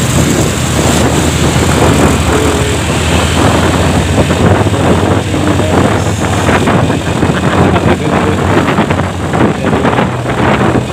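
Motorcycle engine running steadily at riding speed, heard from on the moving bike with road and wind noise over the microphone.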